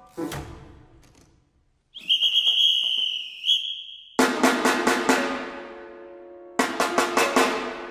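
Percussion: a high held tone, then two quick bursts of rapid drum strikes about two and a half seconds apart, each ringing on and fading.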